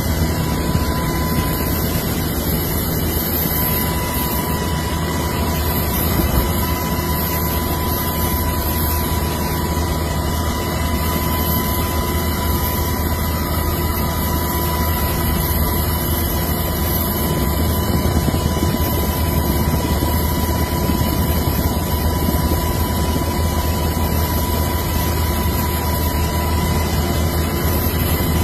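Helicopter running steadily, heard from beside its open door: an even engine and rotor drone with a thin steady high tone over it.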